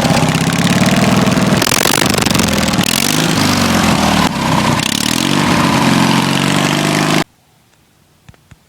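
Riding lawn mower's 18 horsepower engine running loudly, its pitch rising and falling as it is revved. The sound cuts off abruptly about seven seconds in.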